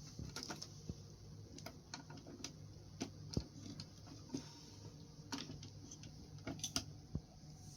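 Campfire crackling: irregular sharp pops and snaps at uneven intervals, the loudest a little past three seconds in and near the end.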